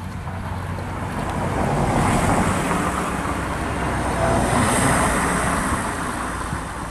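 A motor vehicle passing close by, its engine and tyre noise swelling to a peak in the middle and easing off near the end.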